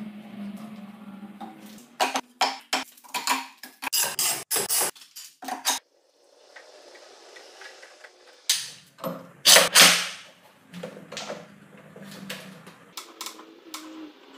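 Steel pipe clamps clanking and clacking as their jaws are slid along the pipes and tightened down on an end-grain cutting board glue-up: two runs of sharp metal knocks, the loudest about ten seconds in. A low steady hum runs underneath at the start and again near the end.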